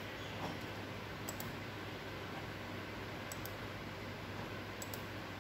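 Quiet room tone with a steady low hum, broken by a few faint, sharp clicks of a computer mouse.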